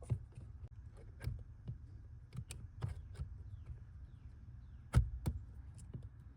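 Plastic clicks and knocks as a replacement HVAC mode-door actuator is slid into place and seated by hand, with the loudest knock about five seconds in. A faint steady low hum runs underneath.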